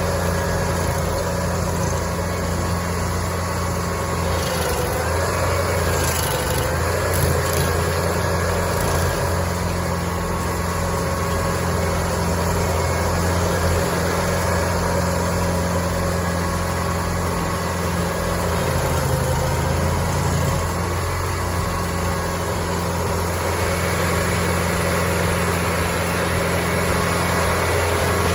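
The engine of heavy wood-processing machinery running steadily, its note shifting slightly now and then.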